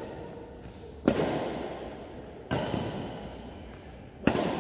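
Badminton rackets striking a shuttlecock back and forth in a rally: four sharp hits about a second and a half apart, each echoing in a large hall.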